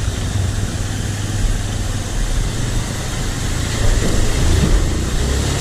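Off-road motorcycle engine running steadily at low revs, a low hum under a steady rushing hiss.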